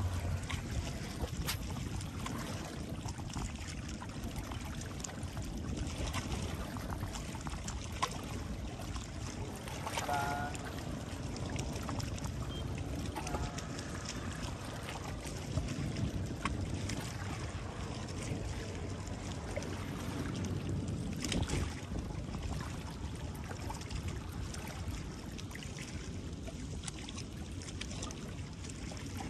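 Steady outdoor wash of sea water and wind, with faint distant voices now and then.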